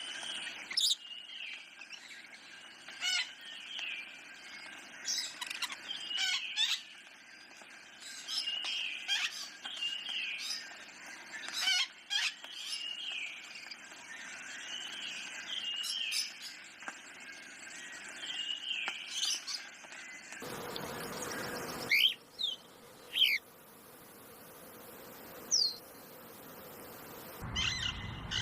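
Forest birds calling: many short chirps and falling notes repeated over a faint hiss. About two-thirds of the way in the background changes abruptly, and a few sharp sweeping whistles follow.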